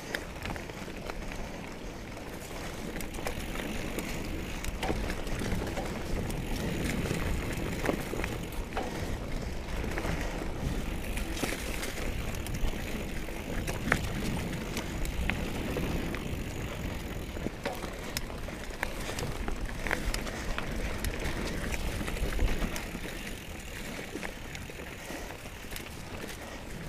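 A 2017 Trek Remedy 7 mountain bike ridden along a dirt trail: tyres rolling over the ground with a steady low rumble, and frequent sharp rattles and clacks from the bike, a couple of them louder around the middle and near the end.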